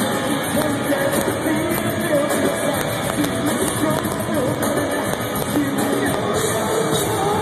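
Live metalcore band playing loud: electric guitars and drums with the vocalist singing into the microphone.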